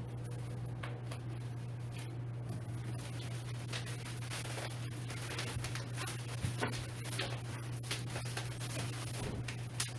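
Scattered rustles, scrapes and light knocks of chair parts and packaging being pulled out of a cardboard box, over a steady low hum.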